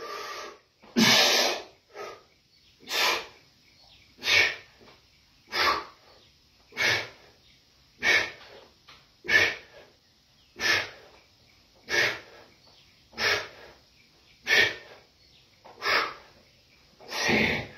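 A man blowing out forceful breaths in a steady rhythm, about one every 1.3 seconds, one with each rep of narrow-grip barbell bench presses.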